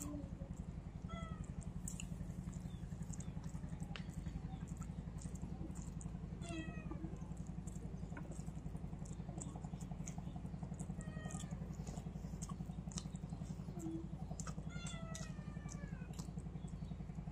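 A domestic cat meowing several times, each meow short and falling in pitch, over a steady low hum and scattered small clicks.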